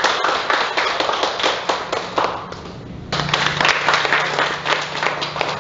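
A small group of people clapping in a room, in two rounds with a short lull about halfway through.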